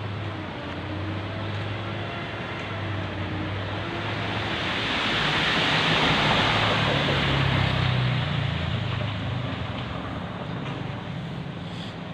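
Road traffic: a motor vehicle's engine hum under a broad rush of tyre and road noise that builds to a peak about halfway through and then eases off, as of a vehicle passing close by.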